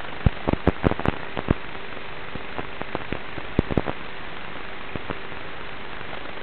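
Onboard sound of a Traxxas Slash 1/10-scale RC truck driving over rough grass and dirt: a steady hiss with irregular sharp clicks and knocks of the truck jolting over the bumps. The knocks are thickest in the first second and a half, with a few more near the middle.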